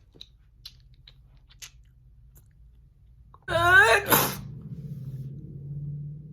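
A woman sneezing: after a few faint small clicks, a loud rising 'ah' build-up comes about three and a half seconds in, then the sharp sneeze burst, followed by a low drawn-out sound that trails on.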